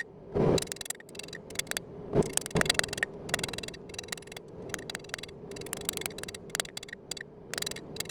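Hand-tool work on steel: a busy run of small clicks and scrapes, with a few duller knocks early on, over a faint steady hum.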